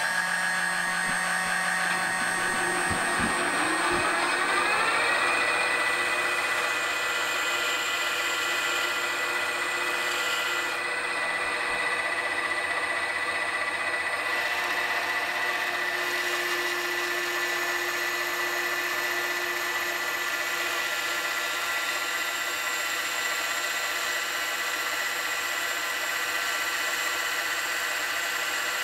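Proxxon rotary tool mounted on a lathe's toolpost, running together with the lathe while a small cutter cuts a 10-degree taper into the end of a silver-steel crankshaft. Their whine rises in pitch about four seconds in, then holds steady.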